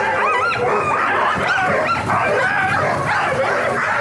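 A chorus of Alaskan husky sled dogs yipping and barking, many short rising-and-falling yelps overlapping without a break.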